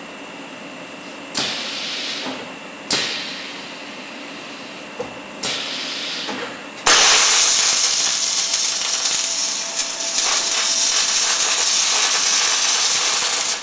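Automated torque-converter hub welding machine: three short hissing bursts as it cycles into position, then about seven seconds of loud, steady welding-arc hiss and crackle as the hub is welded on, cutting off at the end.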